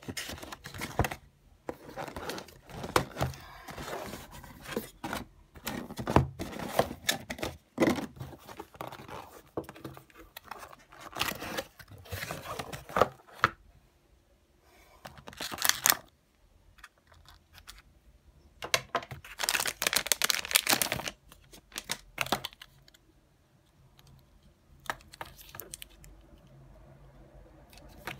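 Unboxing: a cardboard box and its packaging handled, rustled and torn open, and the adapter's cables lifted out, in irregular crinkling and scraping bursts that thin out over the last several seconds.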